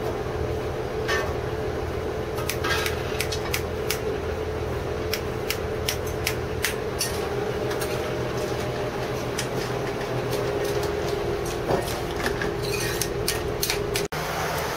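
A steady motor hum with frequent sharp clinks and taps of dishes and utensils.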